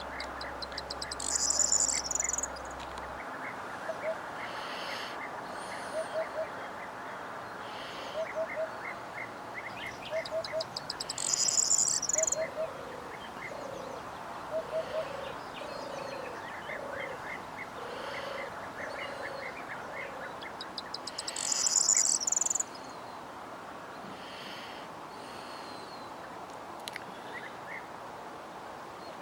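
Mixed wild birdsong. A loud, rapid, high-pitched song phrase comes about every ten seconds (three times). Through the first two-thirds there are low, short notes, often in pairs, repeated every couple of seconds, over a steady background of other calls and chirps.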